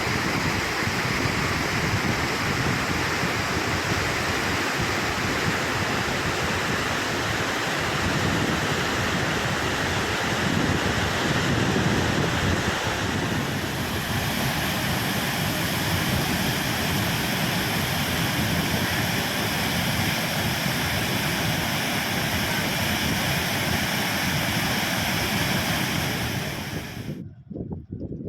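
Steady rushing of falling water from a waterfall. Its tone shifts slightly about halfway through, and it cuts off suddenly near the end.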